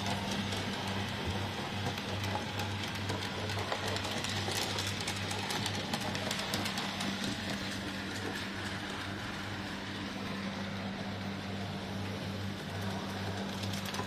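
OO gauge model trains running on a layout: a steady low electric-motor hum pulsing about twice a second, with light clicking of the wheels over the rail joints.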